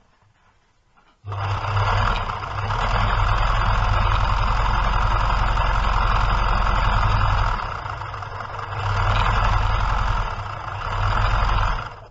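1972 Łucznik KL.441 electric sewing machine running and stitching through cotton test fabric: a steady motor hum with the fast clatter of the needle mechanism. It starts about a second in, dips twice, and stops at the end.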